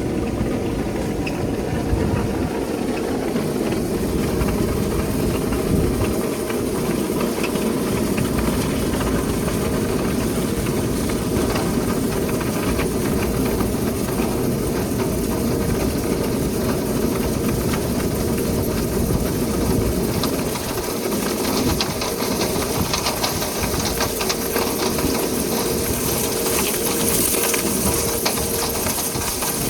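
Steady running of powered vent-cleaning equipment: a continuous motor noise with a held tone and an airy hiss, the hiss growing brighter near the end.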